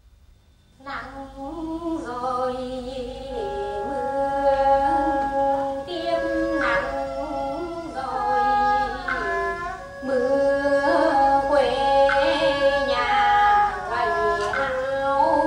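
Music of women's voices singing together in long held notes that bend and waver, starting about a second in.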